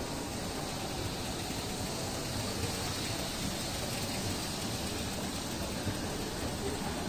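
Steady, even background noise of a large store interior while riding an escalator, with no distinct sounds standing out.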